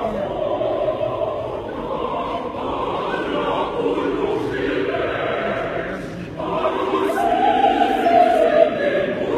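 A choir singing in parts, holding long sustained notes. The sound drops briefly about six seconds in, then comes back louder.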